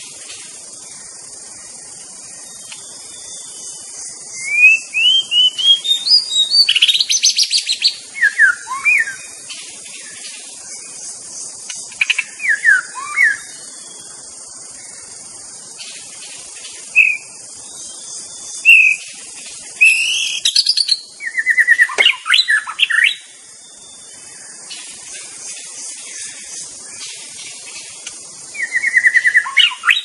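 White-rumped shama singing in separate bursts of loud, varied whistled phrases and rapid trills, with pauses between them, over a steady high-pitched hiss.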